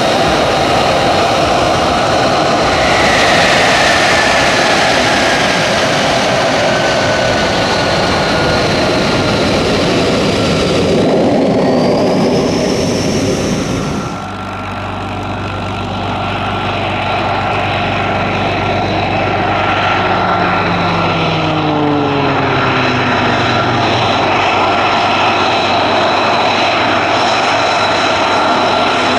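An F-35A Lightning II's Pratt & Whitney F135 turbofan running on the ground and taxiing: a loud, steady jet noise with high whining tones. One whine falls about three seconds in and another rises shortly before halfway. The sound changes abruptly about halfway through to a steadier whine.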